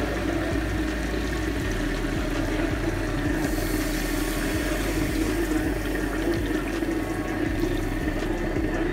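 Coconut milk poured from a bowl into a pot of fried duck meat and potatoes, a steady rush of liquid that grows brighter about three seconds in, over a constant low hum.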